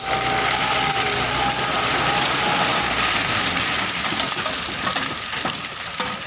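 A load of stones sliding out of a tipped dump truck bed and pouring onto the ground: a dense rattling rush of rocks starting suddenly, easing a little over the last couple of seconds with separate knocks near the end. The truck's engine runs underneath.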